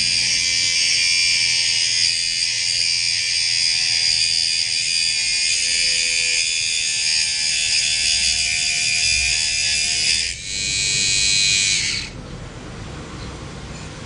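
Mini grinder running with a steady high-pitched whine, dipping briefly about ten seconds in, then running again before stopping about two seconds later.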